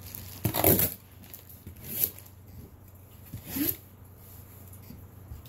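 A razor blade slicing through the packing tape on a cardboard box in three short strokes, the first and loudest about half a second in, then about two and three and a half seconds in.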